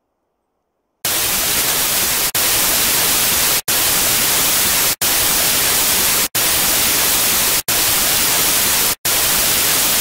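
Sudden loud burst of white-noise static about a second in. It hisses on evenly, cut by brief dropouts roughly every 1.3 seconds.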